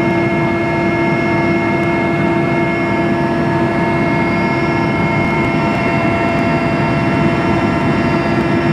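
Steady drone of a helicopter heard from inside the cabin, with several constant whining tones over the engine and rotor noise and no change in pitch or level.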